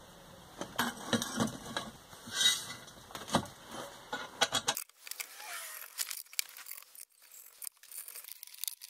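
Metal parts and tools being handled, giving irregular clinks, knocks and rattles.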